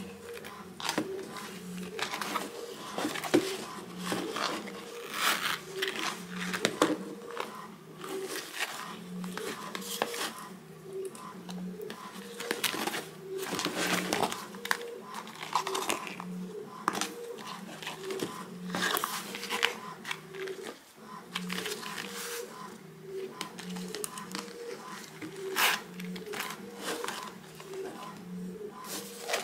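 Hands handling a Louis Vuitton Brazza wallet of monogram canvas and leather, with its fabric dust bag and paper packaging: repeated rustling, crinkling and light taps. A faint low pulse repeats about every second and a half underneath.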